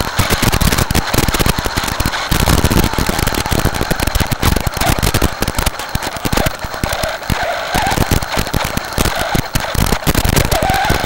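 RC truck running over gravel and leaf litter: dense, continuous crackling and clatter, with a faint wavering whine in the second half.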